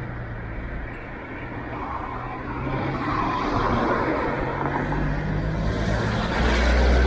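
Street traffic: a motor vehicle's engine running close by over a haze of road noise, growing louder, with a vehicle passing close near the end.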